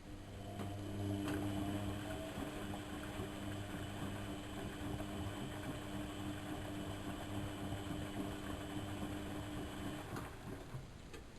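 Lloyds 825 washing machine running with a steady motor hum for about ten seconds, then stopping shortly before the end.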